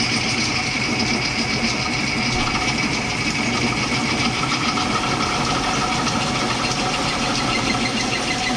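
Old floor-standing drill press running, its bit hand-fed into a metal part clamped in a vise. A steady machine hum with a steady high whine over it.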